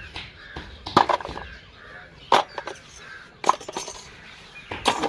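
Plastic pipe fittings knocking and clinking as they are handled: four short, sharp knocks about a second apart.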